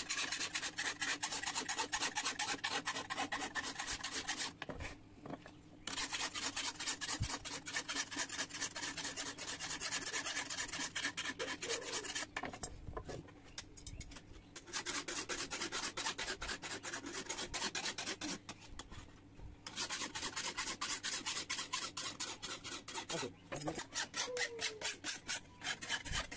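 Hand tool working the edge of a steel sickle blade: rapid, evenly spaced metal strokes in runs of several seconds, broken by a few short pauses.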